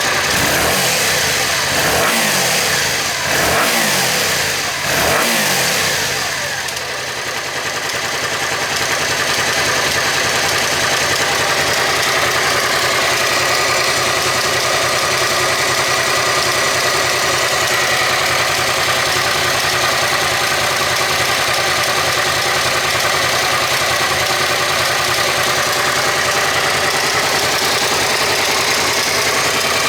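Suzuki SV400 V-twin engine blipped three times, then idling steadily, with an occasional dry snap like a flicked card from the front cylinder: a stretched front-bank cam chain.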